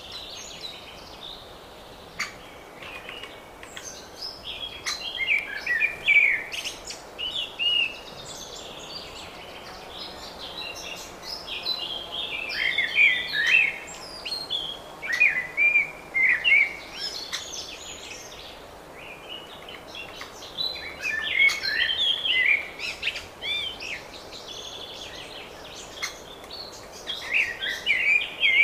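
Songbirds singing in spring: bursts of warbling, chirping song a few seconds long, repeated with short pauses, over a faint steady background hiss.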